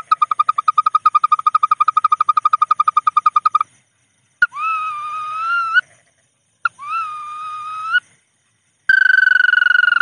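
Recorded lure call of the bawangan sawah bird, played back. A fast, even trill at one pitch stops about three and a half seconds in. Two shorter calls of a little over a second each follow, each starting with a click and rising in pitch. The fast trill starts again near the end.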